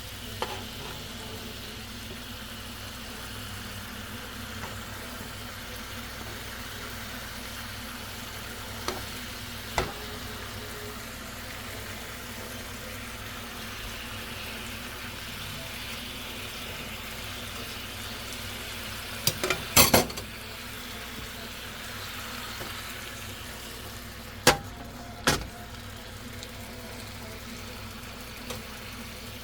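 Marinated chicken frying in a pan over medium heat, a steady sizzle. A few sharp knocks and clinks of cookware cut through it, the loudest a quick cluster about two-thirds of the way in.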